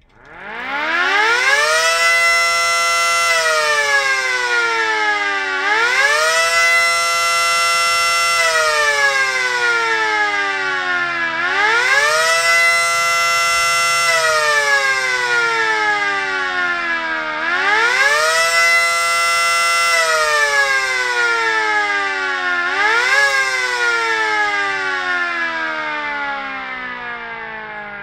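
Mini 5T model siren, run with its housing cover off, sounding a short attack signal. It winds up from a stop, then wails up and down about every six seconds: four full rises and falls, then a brief last rise before winding down near the end.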